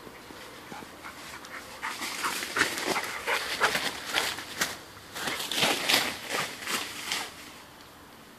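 Dog panting close by in quick, uneven breaths, loudest between about two and seven seconds in, mixed with rustling of leafy undergrowth as it moves through it.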